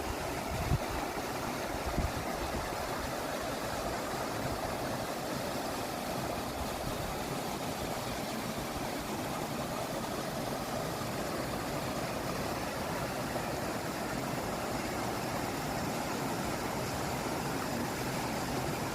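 Mountain valley stream flowing with a steady, even rush of water.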